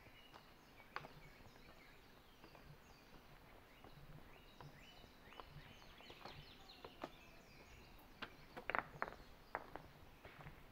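Faint footsteps on a gravel trail, with birds chirping in the background; the loudest cluster of steps comes about three-quarters of the way in.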